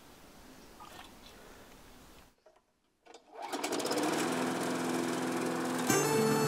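Small petrol engine of a grass-cutting machine starting up loud and running with a fast, even pulse after a sudden cut about two and a half seconds in. Before the cut there is only faint background with a few light knocks.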